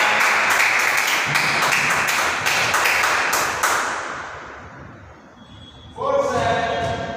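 Spectators clapping and cheering after a squash rally ends, with many quick irregular claps that die away after about four seconds. Near the end a held musical tone starts.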